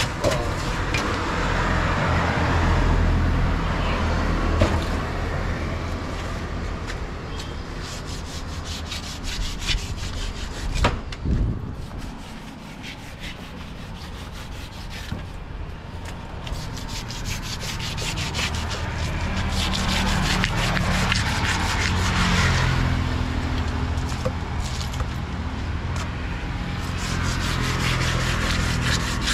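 Knife scraping and cutting a large catla carp: steady rasping and rubbing, with a run of quick small clicks through the middle, over a steady low hum.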